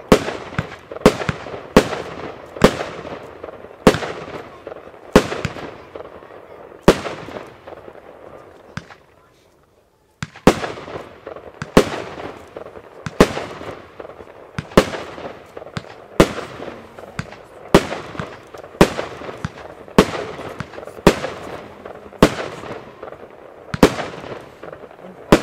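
XL compound fireworks cake (Blackboxx Pyro Spektakel Level 1) firing shot after shot: sharp bangs about a second apart, each fading out before the next. The shots stop for about three seconds partway through, then carry on at the same slow pace.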